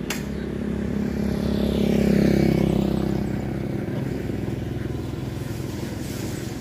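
A motorbike passing by on the road, its engine growing to its loudest about two seconds in and then fading away.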